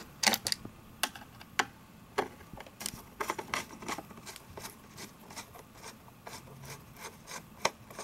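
Screwdriver loosening the bottom-cover screws of an iRobot Roomba 560 robot vacuum: irregular sharp clicks and light scraping as the bit turns in the screw heads, some clicks coming in quick clusters.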